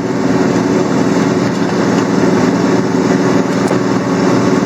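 Engine of a 26-foot moving box truck labouring up a steep hill with the accelerator floored, a loud, steady drone heard from the cab; the heavily loaded truck is short of power on the climb.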